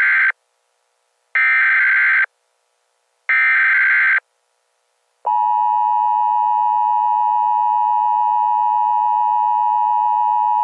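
Emergency Alert System tones: three screechy bursts of SAME header data, each about a second long and a second apart, then about five seconds in the steady two-tone EAS attention signal starts and holds.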